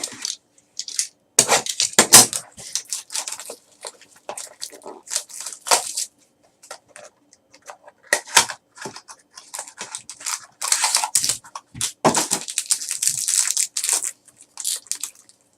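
Trading card packaging being torn open and crinkled by hand, with irregular crackling and rustling as the cards are handled.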